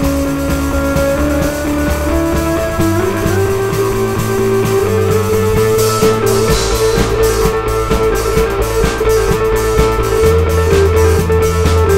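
Rock music with sustained guitar notes; a steady drum beat comes in about halfway through.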